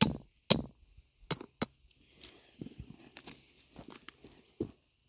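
A hammer striking a steel trap stake being driven into hard clay: about four ringing metal clinks in the first second and a half, the first two loudest. Then dry grass and dirt crunching and rustling under boots, with a dull thump near the end.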